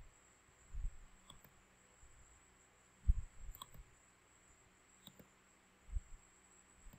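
A few faint computer mouse clicks a second or two apart, with soft low thumps in between.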